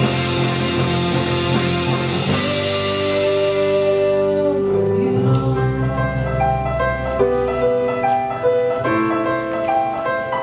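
Live rock band playing: electric guitar, bass, keyboard and piano on slow, held notes. A bright hiss over the top dies away about three seconds in, and a deep bass note sounds through the middle.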